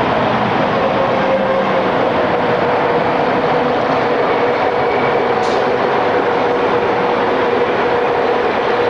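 Train running through a station: a steady rumble of wheels on rail under a constant whine, with one short click about halfway through.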